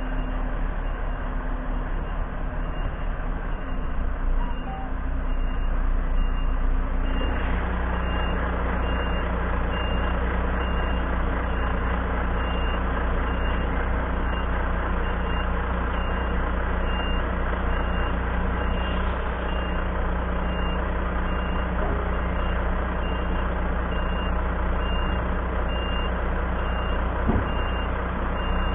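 A heavy vehicle's reversing alarm beeping about once a second over a diesel truck engine running. The engine gets louder about seven seconds in.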